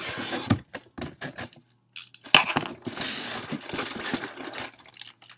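Packaging being handled and opened by hand: rustling and scraping, with scattered clicks and knocks, and a longer stretch of rustling from about two seconds in until shortly before the end.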